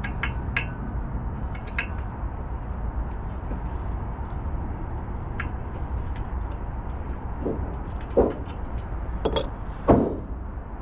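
Scattered metal clinks and taps from a steel bricklaying profile and its clamp being adjusted, with two duller knocks about eight and ten seconds in, over a steady low rumble.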